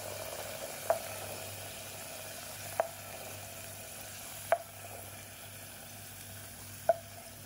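Hot oil sizzling softly and slowly fading as fried green bird's-eye chilies are scraped out of a frying pan with a wooden spatula, the heat just switched off. Four sharp knocks of cookware, each with a short ring, come about two seconds apart.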